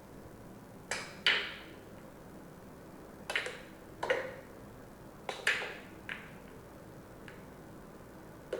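Billiard sound effect: pool balls clacking together, about eight sharp clicks with a short ring, some in quick pairs, as the cue ball strikes several balls.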